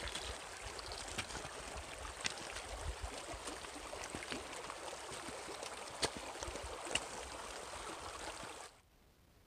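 Shallow mountain creek babbling over rocks and pebbles: a steady rush of water with small splashes and trickles. It stops abruptly near the end.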